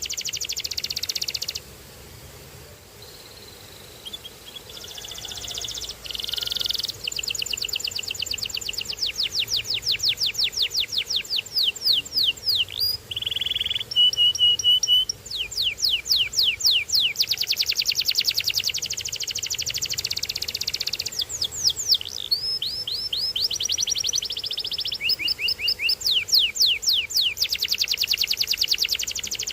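Domestic canary singing a long song: fast trills of rapidly repeated notes, changing from one trill to the next, with a few held whistled notes in the middle. The song pauses for about two seconds near the start.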